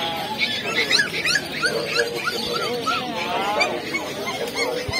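A litter of puppies whimpering and yelping, with many short rising-and-falling cries overlapping one another.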